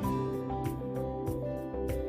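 Background music: mellow instrumental with sustained notes and a steady beat.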